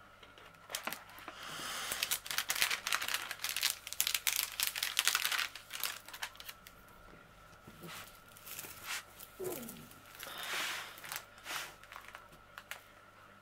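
Diamond painting canvas and its plastic cover film crinkling and crackling as it is unrolled and smoothed flat by hand: a dense flurry for the first few seconds, then smaller, scattered bursts.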